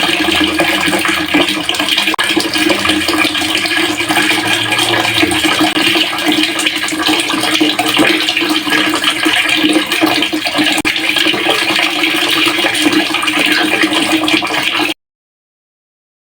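Water pouring steadily into a pail, a continuous rushing splash with a steady low tone underneath. It cuts off suddenly near the end.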